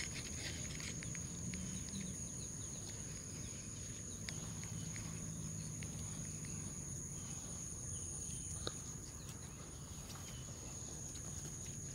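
Steady high-pitched chorus of insects such as crickets at the water's edge, two unbroken high tones that never let up, over a low rumble and a few faint scattered clicks.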